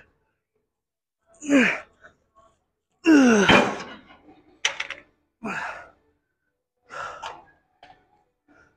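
A man's short, breathy grunts and exhales, each falling in pitch, four or five of them a second or two apart, like the strained breathing of a heavy lift. A sharp knock lands about three and a half seconds in, followed by a few light clicks.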